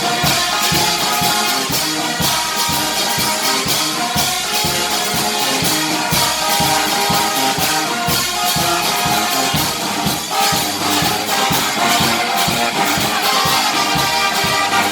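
Lively worship music with a steady drum beat under melodic instruments.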